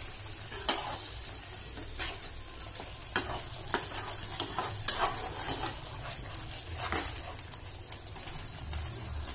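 A spatula stirring and scraping around a metal kadai of thin fish curry, with about a dozen short scrapes at irregular intervals. A steady sizzling hiss from the hot gravy sits underneath.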